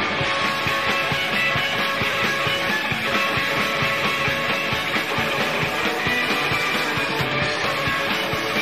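Rock band playing an instrumental passage between vocal lines: electric guitar, bass and drums at a steady, driving beat.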